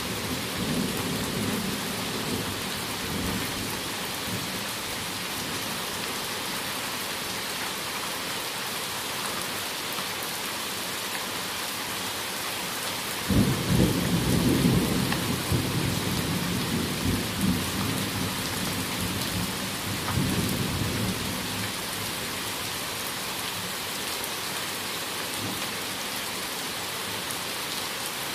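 Heavy thunderstorm rain falling steadily, with low thunder rumbling faintly at first. About halfway through, a sharp thunderclap breaks and rolls on, fading over several seconds.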